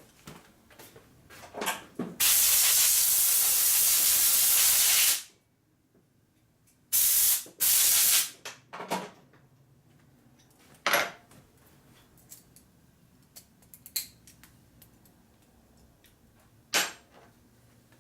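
Pressurized spray hissing: one long blast of about three seconds, then two short blasts, with light metal clinks of tools and parts between them.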